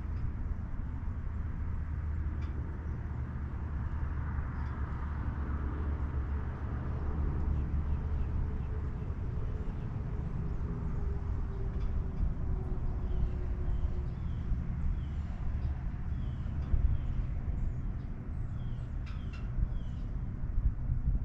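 An engine running with a steady low rumble, with short high chirps scattered through the second half.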